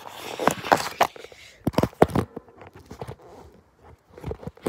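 Handling noise from a phone being carried and set in place: irregular knocks, clicks and rustling, with footsteps on grass.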